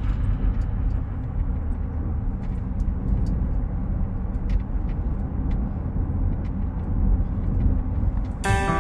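Car driving along a road: a steady low rumble of tyre and road noise. Music with plucked guitar notes comes in near the end.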